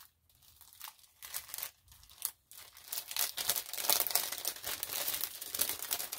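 Clear plastic packaging bags crinkling as they are handled, faint and sparse at first, then dense and continuous from about two and a half seconds in.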